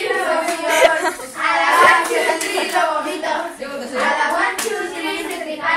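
Young voices talking and laughing over one another, too jumbled to make out, with a few sharp clicks from hands handling the phone.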